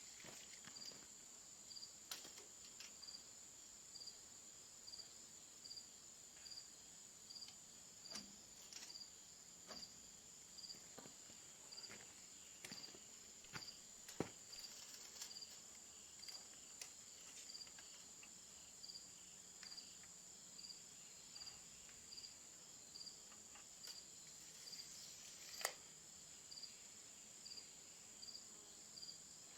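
Faint insects: a steady high buzz with a regular chirp about every three-quarters of a second, and a few scattered light knocks and taps, two of them sharper.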